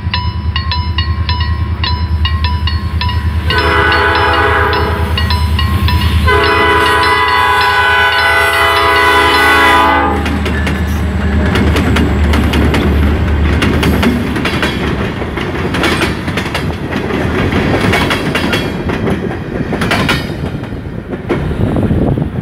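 A Polish level-crossing warning signal repeating a steady pulsed tone, then a Norfolk Southern SD40-2 diesel locomotive's horn blowing a short blast and a long one. After about ten seconds the locomotive passes close by with its engine rumbling, followed by freight cars clattering over the rail joints.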